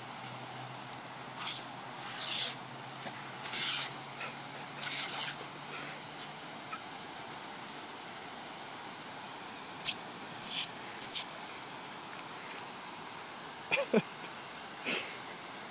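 Pop-up lawn sprinkler head spraying a thin jet with a steady hiss, broken by short splashy bursts as a boxer puppy goes at the water, several in the first six seconds and a few more later. Near the end come two short squeaks that fall in pitch.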